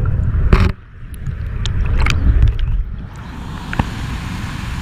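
Rushing stream water heard through a GoPro held underwater: a muffled deep rumble with a few sharp clicks and knocks. About three seconds in it turns into the steadier, brighter rush of the stream heard above the surface.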